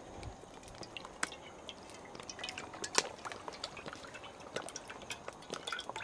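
Cooking oil poured in a thin stream from a plastic bottle into a hot wok: faint, irregular dripping ticks and small pops that grow busier toward the end.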